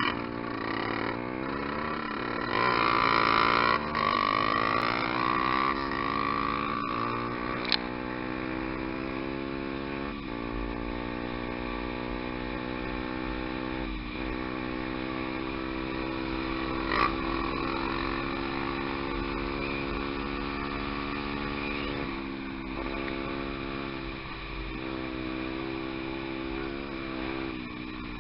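Single-cylinder four-stroke trail motorcycle engine running under way. Its note climbs over the first several seconds, then holds fairly steady with small dips, as when riding at an even pace. A loud rushing stretch comes a few seconds in, and two sharp knocks come at about a third of the way and past halfway.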